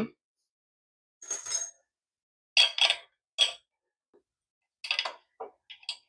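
Short metallic clinks and rattles, about six in all and spread through the few seconds, as a carbon-steel wall bracket for a dishwasher and its screws are handled and set against a tiled wall.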